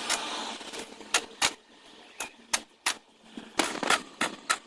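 A series of sharp clicks or taps, about ten of them at an uneven pace of roughly two a second.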